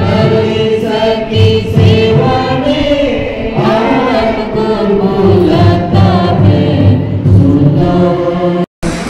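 Music with a choir of voices singing together. The song cuts out for a moment near the end.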